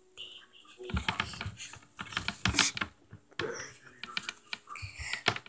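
Irregular clicks and knocks from hands handling things right next to the microphone, with a few louder knocks among the lighter taps.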